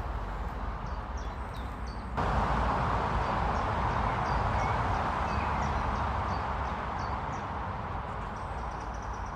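A steady outdoor rush that gets suddenly louder about two seconds in, with short, high chirps of a small bird repeating over it.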